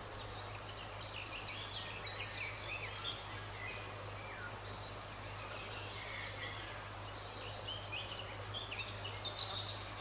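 Faint woodland birdsong: several small birds chirping and trilling, with one quick trill near the middle, over a steady low hum.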